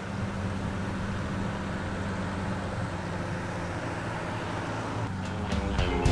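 A steady low rumble with a haze of noise. Music comes in near the end.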